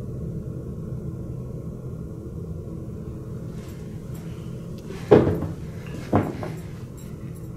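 Two sharp knocks about a second apart, the first louder, each with a short ring, over a steady low hum.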